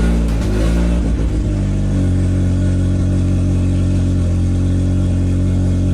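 Nissan S13 Silvia drift car's engine running, its pitch shifting for the first couple of seconds before it settles into a steady idle.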